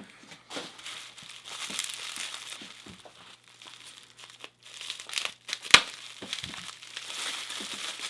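Plastic packaging crinkling and rustling as it is handled and pulled off a wrapped padlock, with scattered small ticks and one sharp click a little before six seconds in.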